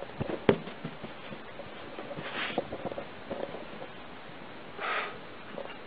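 A kitten hopping sideways on carpet: soft paw thumps and scuffles, one sharper knock about half a second in, and two short breathy noises, one near the middle and one near the end.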